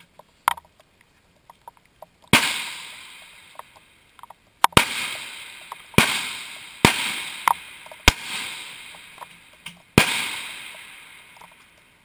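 Rifle shots on a long-range firing line, about eight sharp cracks at irregular intervals, two of them in quick succession. Each is followed by a long echo rolling away across the range.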